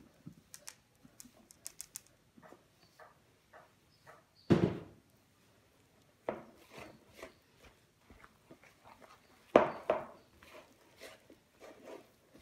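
Hands mixing soft butter dough and flour in a bowl: scattered light clicks and handling noises, with two louder thumps about four and a half and nine and a half seconds in.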